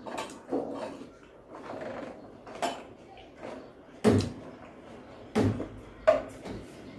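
Eating at a table: a few sharp knocks and clinks of a metal serving spoon against a ceramic serving dish, the loudest about four seconds in, with quieter handling and eating noises between.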